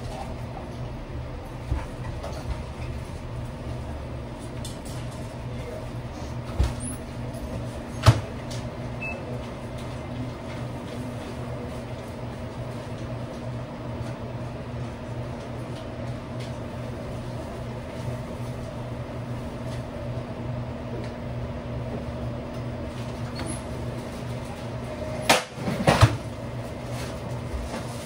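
Steady hum of restaurant kitchen equipment and ventilation, with a few scattered knocks and clunks. The sharpest comes about eight seconds in, and there is a short run of clatter near the end.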